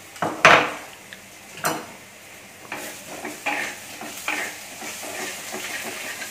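Ginger-garlic paste being added to onions frying in hot mustard oil in a clay pot: two sharp knocks of a spoon on the pot, the first the loudest, then sizzling with the scrape of stirring strokes.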